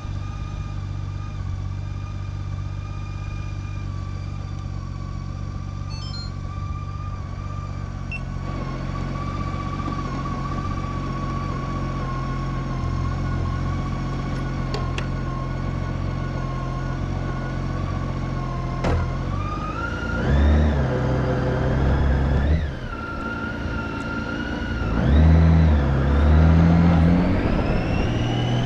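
Motorcycle running along the road with steady engine and road noise. Its pitch rises and falls through speed changes about two-thirds of the way in and again near the end.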